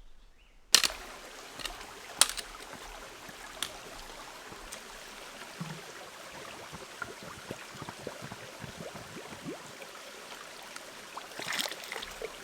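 Stream water running steadily, with a few sharp clicks in the first few seconds.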